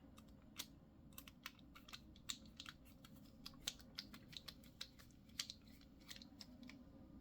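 Faint, irregular light clicks and ticks, a few a second, from small screws being gently driven into a folding knife's handle with a bit driver.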